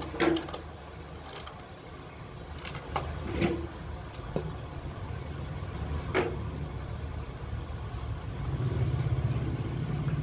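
A handful of sharp knocks and clicks as a carved wooden wall clock and small fittings are handled and turned over on a wooden board. Under them runs a steady low rumble that grows louder near the end.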